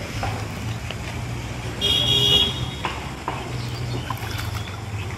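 Steady low motor hum, with a short horn toot lasting under a second about two seconds in.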